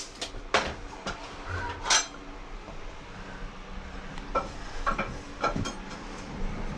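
A scattered series of sharp metallic clinks and knocks from metal plumbing parts and tools being handled. The loudest comes about two seconds in, with a few lighter ones later.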